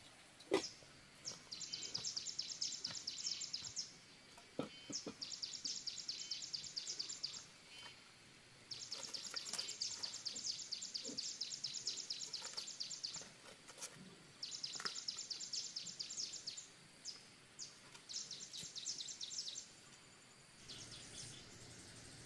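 A calling animal giving a high, rapid pulsing trill, repeated in bouts of two to four seconds with short pauses between. A sharp knock sounds about half a second in, and a few soft knocks and scrapes come later.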